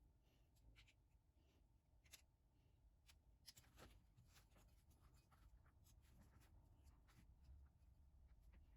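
Near silence, with faint scratching and light clicks at irregular intervals.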